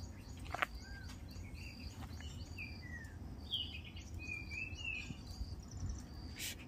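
Birds chirping and whistling: many short high calls, some sliding down and some sliding up in pitch, over a low steady rumble of outdoor background noise. A sharp click sounds just after the start and another near the end.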